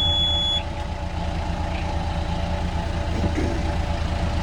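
Sailboat's inboard engine idling steadily just after starting, with an even low pulse. The engine panel's high alarm tone cuts off about half a second in.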